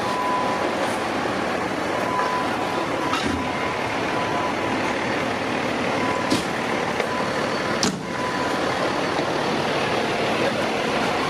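Steady, loud running noise of the Rescue 1 heavy rescue truck, engine and road noise heard from inside the truck, with a faint high tone that comes and goes and two sharp clicks in the second half.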